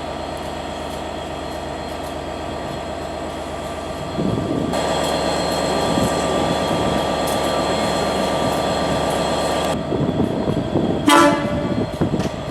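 A railtour train at the station: a steady mechanical hum that grows louder about four seconds in and eases near ten seconds, then one short, high toot of a horn about eleven seconds in.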